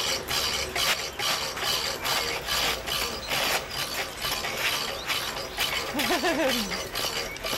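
Hand-turned drive mechanism of a water-vortex tube clicking and rattling like a ratchet, about three or four clicks a second as it is cranked to spin the water. About six seconds in, a short wavering voice falls in pitch.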